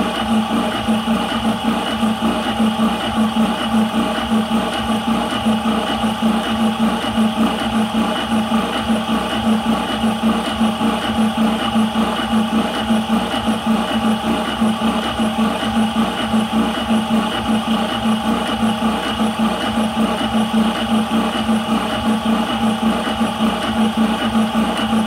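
High-pressure air compressor running steadily with a strong hum and a fast, regular pulsing beat, partway through filling an airgun's 180cc air cylinder, with the gauge at about 110 bar.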